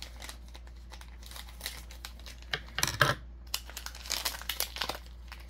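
Clear plastic wrapping crinkling as it is handled and pulled open, in irregular crackles starting about halfway through, loudest around three seconds in.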